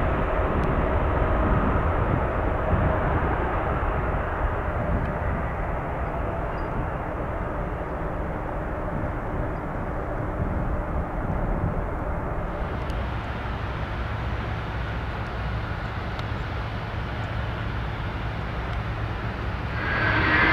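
Jet airliner engines heard outdoors as a steady low rumble that slowly fades. Near the end the sound jumps abruptly louder, with a high steady engine whine.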